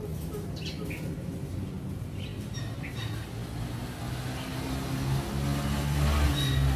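Steady low hum of a motor vehicle's engine, growing louder near the end, with a few short, faint bird chirps over it.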